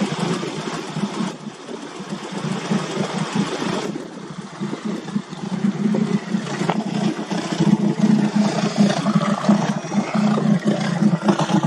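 Ford Zetec 2.0-litre 16-valve inline-four, fuel-injected and marinised as an inboard boat engine, idling steadily with its idle freshly tuned. It grows louder from about six seconds in.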